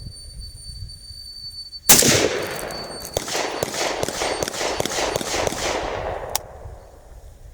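Zastava ZPAP M85 semi-automatic AK pistol in 5.56/.223 firing: a single shot about two seconds in, then a rapid string of about a dozen shots over some three seconds.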